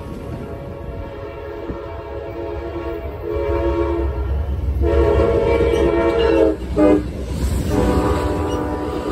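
An approaching Amtrak train's lead diesel locomotive sounds its horn: one long blast, a short one, then another long one. The deep rumble of its diesel engines grows as the P42DC and P40DC locomotives pass close by.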